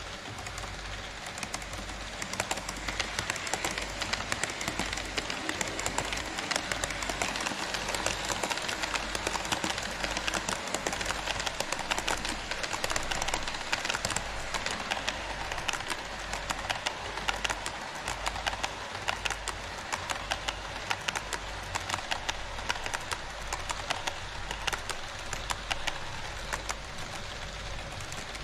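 HO-scale model Twilight Express passenger train running past on sectional track: a steady clatter of metal wheels with rapid clicks as they roll over the rail joints, building about two seconds in.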